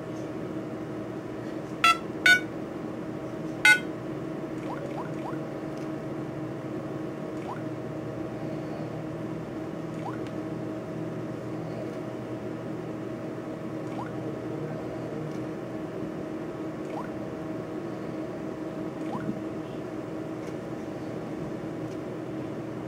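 Three short electronic beeps from a Galaxy S4 Mini clone smartphone's speaker, two close together about two seconds in and one more near four seconds, over a steady low background hum; faint soft ticks of fingertip taps on the screen follow.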